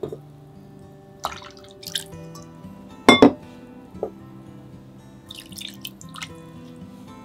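Water dripping and splashing in a metal bowl of cod roe soaking in water, several separate drips and splashes with the loudest about three seconds in. Soft background music with held notes plays underneath.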